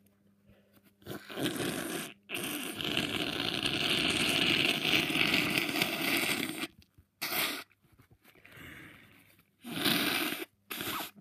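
A person congested with a cold blowing a blocked nose hard: a short blow about a second in, then one long blow of about four seconds, then a few shorter blows.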